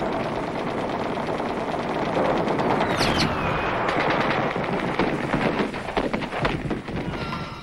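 Rapid automatic gunfire, many shots in quick succession and overlapping like a firefight, with a short falling whistle about three seconds in.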